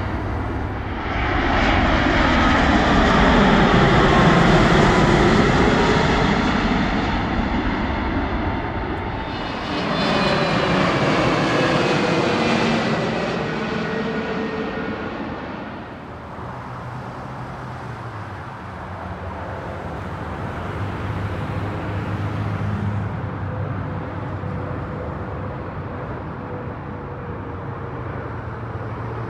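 Jet airliners passing low overhead on landing approach: the rush of engine noise swells and fades twice, each time with a whine falling in pitch as the jet goes by. In the second half a quieter, steadier engine sound runs on.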